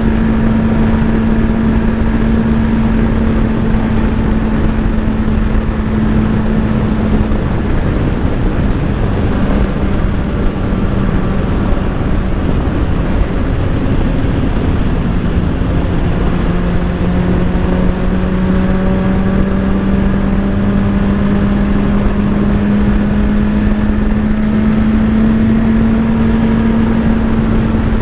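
Motorcycle engine running at a steady cruise under loud rushing noise. Its pitch dips about halfway through, then slowly climbs again.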